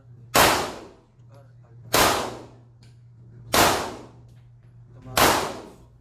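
Glock 17 pistol fired four times at a slow, even pace, about a second and a half between shots, each shot echoing briefly.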